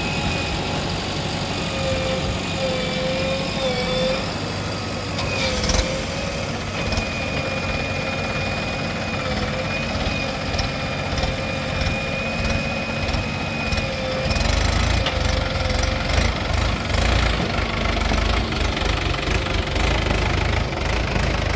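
Diesel engine of earth-moving machinery running steadily, with a thin whine that wavers in pitch. About fourteen seconds in, the engine gets louder and deeper, with a rough clatter.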